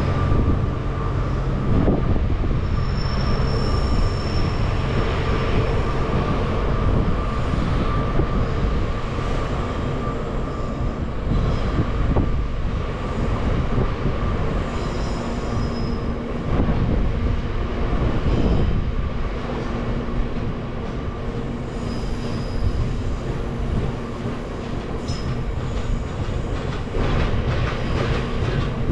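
Freight train running on the rails: a steady rumble of wagon wheels with clicks over the rail joints, and brief high wheel squeals now and then.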